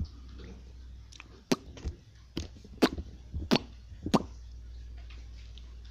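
Glossy dark slime being squeezed and stretched by hand, giving a run of sharp pops and clicks as air pockets in it burst, about seven of them between one and four seconds in, over a low steady hum.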